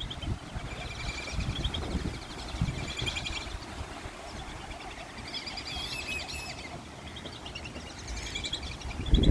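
Birds calling in repeated short, fluttering high chirps and whistles, over a low rumble.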